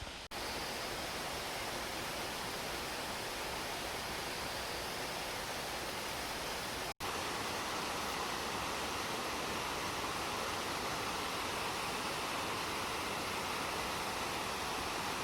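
A small mountain stream's water running steadily. It cuts out briefly twice.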